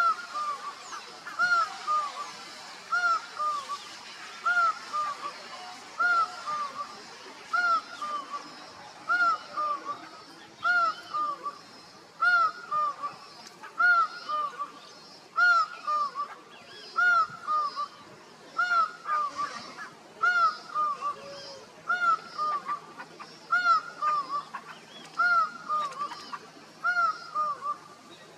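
Laughing falcon calling: a loud, regular series of arched two-part notes, about one every second and a half, the repeated 'wah-co' call by which it calls to others. Fainter extra notes overlap the series about two-thirds of the way through.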